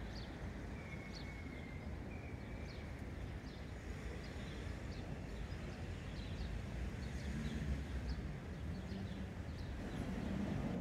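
Outdoor ambience: a steady low rumble with small birds chirping repeatedly, short high chirps about once or twice a second.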